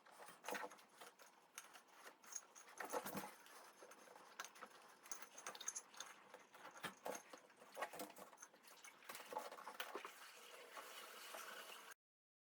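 Faint, irregular clicks, taps and scrapes of hands working on the drum washing machine's parts, in the step where the V-belt and anti-vibration packing are fitted back on.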